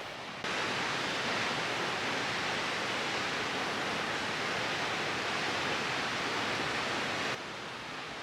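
Steady rush of water from Ram Falls on the Ram River. It grows louder about half a second in and drops back near the end.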